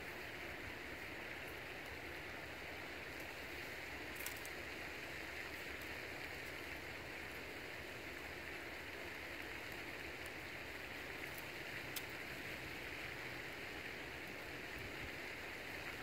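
Steady outdoor background hiss, with a few faint clicks and rustles as cord is wrapped and pulled tight around a wooden stake.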